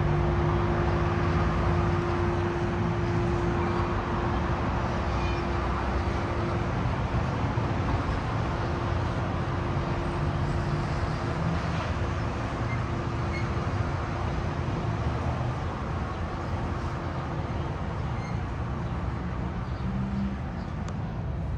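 Sounder bilevel commuter train rolling along the platform: a steady low rumble with a held hum that weakens after about seven seconds, the whole sound slowly fading as the train draws away.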